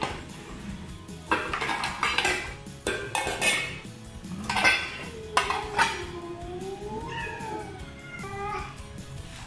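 Domestic cats meowing insistently, in anticipation of wet food, among sharp clinks of metal dishes and cutlery. Over the last few seconds one long drawn-out meow rises and falls in pitch.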